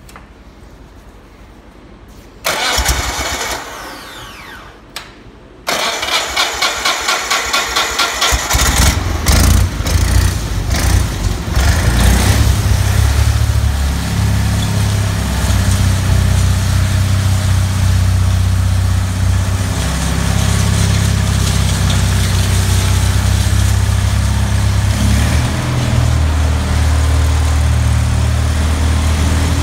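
Onan 24 hp gasoline engine on a Whiteman ride-on power trowel being cranked over in two attempts, about two and a half and five and a half seconds in. The second attempt has a steady beat of about four strokes a second, and the engine catches about nine seconds in. It then runs steadily while the trowel blades turn, its pitch shifting a few times.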